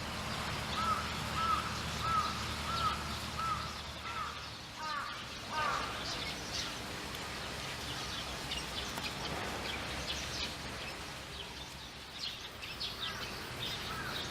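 A series of short, evenly repeated animal calls, about three every two seconds for the first six seconds, followed by fainter scattered higher calls. A low steady hum underneath stops about five seconds in.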